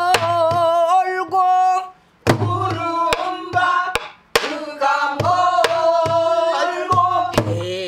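A woman singing pansori in long held, wavering notes, accompanied by her own strokes on a buk barrel drum. The drum sounds as sharp stick cracks and low thumps at intervals, and the voice breaks off briefly twice.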